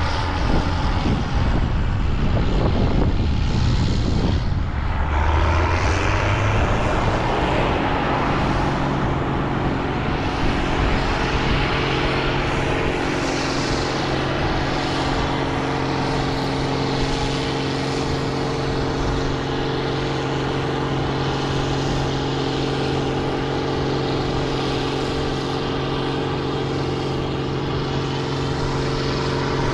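Engine of a large farm harvest machine running. It rumbles and shifts in pitch for the first six seconds or so, then settles into a steady drone at constant speed.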